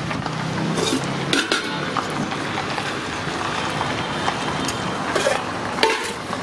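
Steel serving spoons clinking against stainless steel pots and plates as rice and curry are dished out, a few sharp clinks over steady street noise. A low engine hum stops about a second in.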